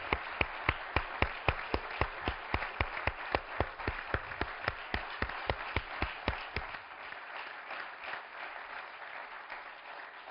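Audience applauding, with one person's claps close to the microphone standing out, steady at about three or four claps a second. The close claps stop about seven seconds in, and the rest of the applause then dies away.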